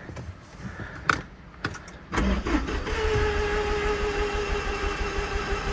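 A flood-damaged 2021 Range Rover's engine starting about two seconds in, after a few light clicks. It catches at once and settles into a steady idle with a steady high tone running over it.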